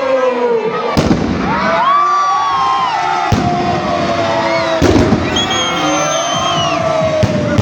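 Fireworks going off: four sharp bangs, one to two and a half seconds apart, over several whistling shells that glide in pitch.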